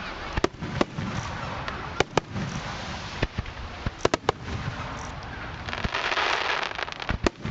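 Aerial firework shells bursting close by in sharp bangs, some coming in quick pairs and triplets, with a dense crackling hiss swelling up about six seconds in.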